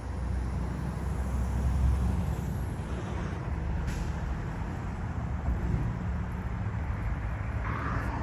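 Motor vehicle running: a steady low rumble, loudest in the first two seconds, with one brief sharp click or hiss about four seconds in.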